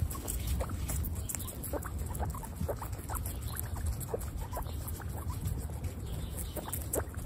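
Several guinea pigs chewing strips of raw red bell pepper: an irregular patter of small, crisp crunches, several a second.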